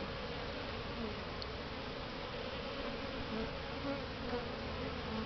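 Honeybees buzzing steadily around an open hive during an inspection, many wings making an even drone.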